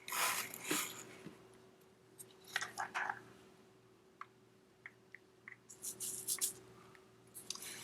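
Quiet scraping, clicking and wet squishing of tools and metal parts being handled as the oil filter cover and filter come off an ATV engine. The noises come in short clusters, near the start, about halfway and near the end, over a faint steady hum.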